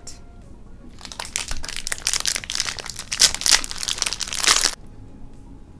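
Two plastic snack wrappers being torn open and crinkled by hand: a dense crackling that starts about a second in and stops abruptly near the end.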